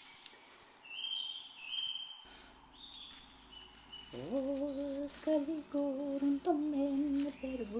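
A few short high whistles, then, from about halfway through, a voice humming a slow tune in held, wavering notes.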